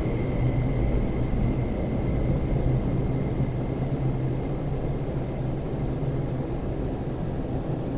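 West Rail Line IKK train pulling out of the platform behind closed screen doors. It gives a steady low running rumble with a hum that slowly fades as it leaves.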